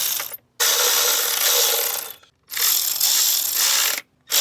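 Hand ratchet clicking fast through long, repeated strokes, about three in a row with short pauses between, as the engine is lowered.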